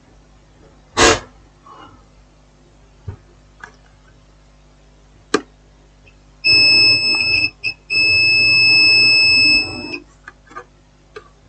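Digital multimeter's continuity buzzer sounding a steady high beep for about three and a half seconds, with one brief break, while its probes touch a burnt component and ground on a phone motherboard: the continuous beep signals the point is shorted to ground. A sharp knock comes about a second in, with a few light ticks of the probes on the board before the beep.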